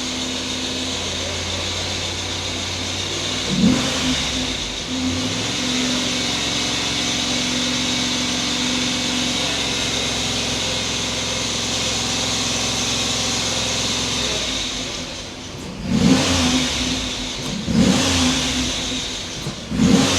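Freshly rebuilt GM LS4 5.3-litre V8 running at a steady fast idle of about 2,000 rpm while it warms up, with the serpentine belt chirping; the belt is dirty. Near the end the revs drop, then rise sharply three times.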